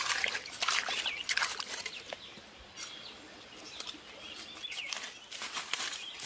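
Bare hands scooping and splashing in shallow muddy water in a hole in the ground, in a busy burst at the start and again near the end, quieter in between. Birds chirp faintly in the background.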